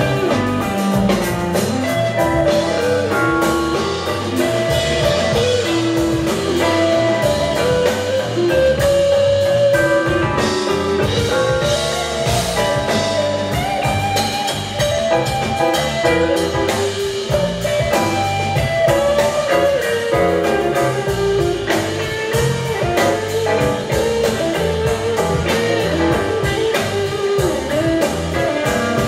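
Live rock band playing an instrumental jam: electric guitar lines over electric bass and a steady drum-kit beat, loud and continuous.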